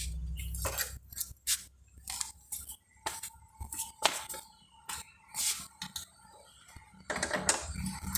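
Irregular sharp metallic clicks and clinks as the motorcycle's rear wheel axle is worked out through the hub.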